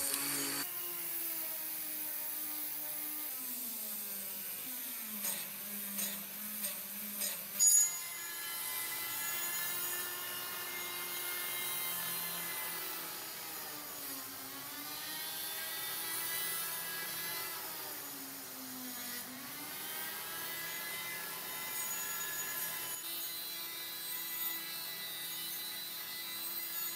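Small handheld rotary tool whining as its spinning wheel works the steel blade of a dagger. Its pitch sags and recovers twice as the wheel is pressed harder into the metal. A few short clicks come between about five and eight seconds in.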